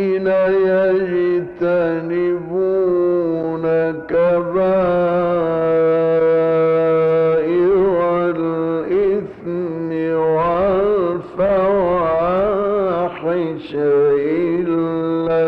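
A man's voice reciting the Quran in the drawn-out melodic mujawwad style: long held notes with wavering ornaments, broken by short pauses for breath.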